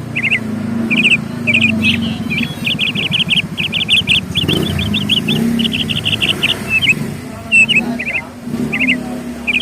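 Small birds chirping in quick runs of short, sharp repeated notes, some runs lasting a second or more, over a steady low hum.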